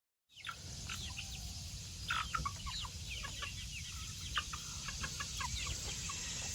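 Chickens clucking and chirping, many short high calls over a steady low rumble, starting suddenly just after the start.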